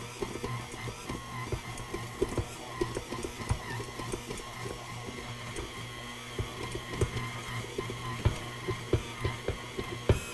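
KitchenAid Artisan tilt-head stand mixer running steadily with its dough hook kneading bread dough, a constant motor hum and whine broken by many irregular knocks as the dough is thrown around the bowl. The mixer is struggling to develop the dough.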